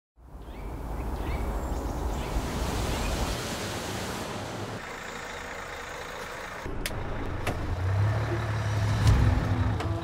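Heavy road-vehicle noise: a steady rush like passing traffic, then from about seven seconds a truck engine running, growing louder, with a few sharp clicks.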